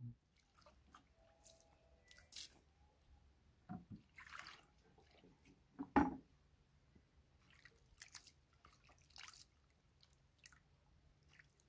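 Water from a plastic jerrycan poured into a metal bowl, then hands splashing and rubbing in the water as mud is washed off, in small irregular splashes and drips. One louder knock about six seconds in.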